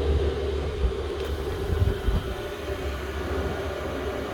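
Chinese diesel air heater running, its blower giving a steady hum over a low rumble, with a couple of soft bumps about one and two seconds in.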